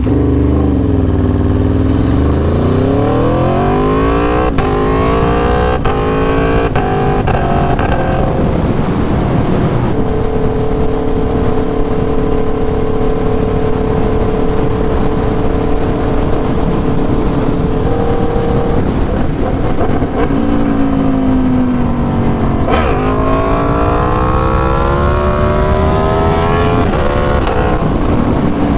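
Aprilia Tuono V4 1100 Factory's 65-degree V4 engine through an SC Project CR-T exhaust, pulling hard through several upshifts in the first several seconds, then cruising at steady revs, easing off and pulling up through the gears again about three-quarters in, over steady wind rush.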